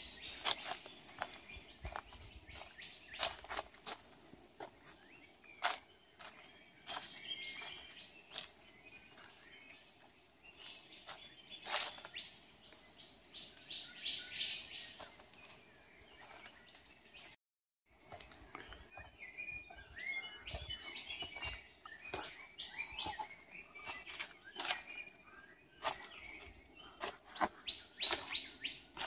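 Birds chirping and trilling in forest, with a run of quick repeated notes in places, over the crunch and rustle of footsteps on dry leaf litter. The sound cuts out for a moment a little past halfway.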